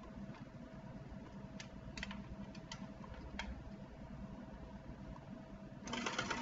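A few light clicks as an electric hand mixer is handled, then near the end the mixer switches on and runs with its wire beaters clanking against each other, a sign that one beater has not snapped into place correctly.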